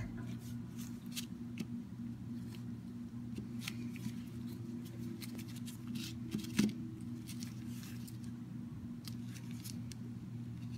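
Gloved hands handling and setting down soft blocks of polymer clay on a sheet of paper: scattered light taps, rustles and clicks of disposable gloves against paper and clay, with a soft thump about six and a half seconds in. A steady low hum runs underneath.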